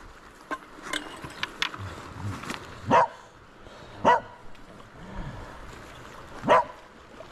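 A dog barking, three short single barks with gaps of one to two and a half seconds between them. A few light clicks come in the first couple of seconds.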